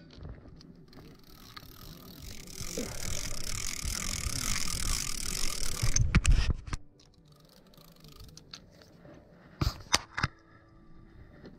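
Spinning fishing reel being cranked to bring in a bluegill. The gear whir grows louder for several seconds and then stops suddenly. A few sharp clicks follow near the end as the fish is lifted out of the water.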